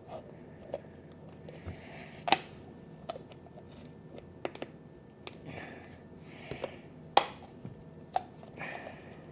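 Scissors snipping and handling sounds: a dozen or so sharp, irregularly spaced clicks, the loudest about two seconds in and again past seven seconds, with soft rustling between them.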